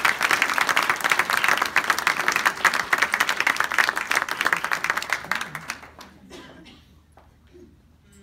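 Audience applauding with dense clapping after an a cappella choir song, fading out about six seconds in.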